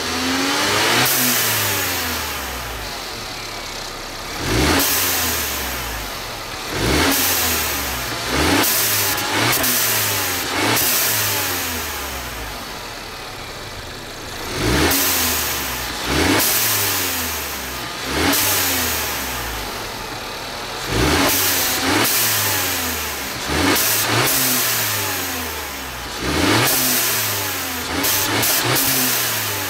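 2014 Mercedes-Benz CLA 250's turbocharged 2.0-litre four-cylinder, fitted with a TurboKits diverter valve spacer, revved in about a dozen quick blips that climb and fall back to idle. Each blip ends in a short rush of air from the diverter valve as the throttle shuts, the sound the spacer is fitted to bring out.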